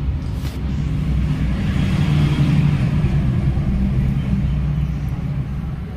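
Low engine hum of a motor vehicle, swelling to its loudest about halfway through and easing off again.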